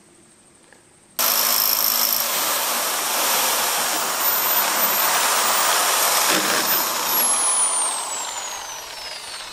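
Corded electric drill driving a hole saw through a metal box-section frame: a steady grinding cut with a high motor whine, starting suddenly about a second in. Near the end the whine falls in pitch and the noise eases as the hole is cut through.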